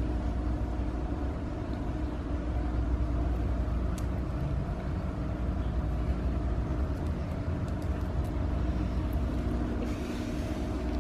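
Steady low mechanical hum with several constant tones, with a few faint clicks and a brief rustle near the end.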